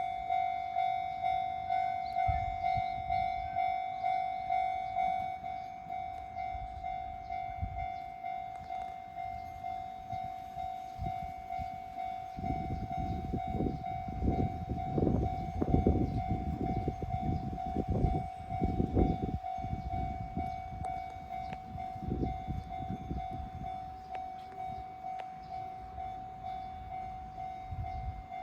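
Japanese railway level-crossing warning bell ringing steadily at about two and a half dings a second. About twelve seconds in, a train passes over the crossing with a low rumble and a run of wheel thumps lasting about eight seconds, while the bell keeps ringing.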